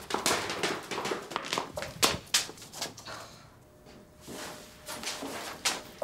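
Footsteps going down stone stairs, irregular knocks and taps mixed with bumps from furniture being carried. They ease off briefly near the middle, then pick up again.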